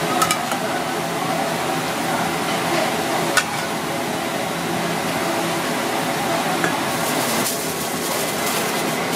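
Aluminium foil crinkling near the end as hands press it down over a clay pot of fish broth. Before that, steady kitchen background noise with a few light clicks.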